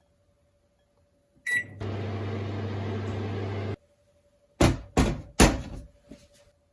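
Microwave oven beeping once as it is started, then running with a steady hum for about two seconds before stopping abruptly. Three loud knocks follow, then a few fainter ones.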